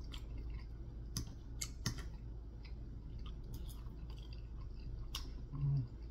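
Eating close to the microphone: chewing, with a few sharp clicks of a metal fork against a plate. A short low hum of the voice near the end.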